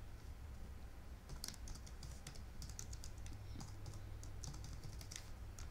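Faint keystrokes on a computer keyboard as a password is typed: a scattered run of single key taps.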